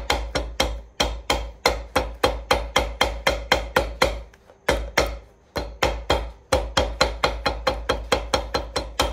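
Shoemaker's hammer tapping freshly glued leather heel lining down inside a boot: quick, even taps about four a second, with a short break about four seconds in.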